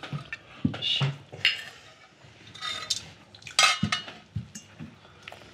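Cutlery clinking and scraping on plates and glassware at a table meal: a string of separate light clinks, the loudest about three and a half seconds in.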